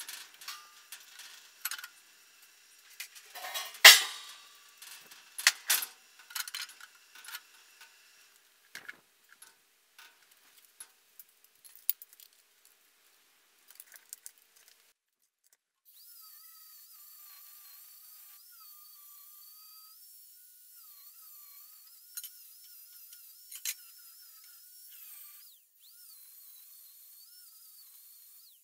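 Steel clanking and knocking as sheet and bar steel are handled on the topper's frame, with one loud clang about four seconds in. In the second half, a faint steady hiss with a wavering high whine.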